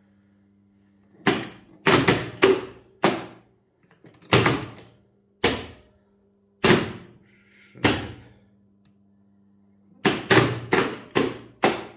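Large AC contactors on a tower crane control panel clacking as they pull in and drop out, switched from the crane's push-button pendant: a series of sharp clacks in irregular groups, with a quick run of them near the end. A faint steady electrical hum sounds between some of the clacks.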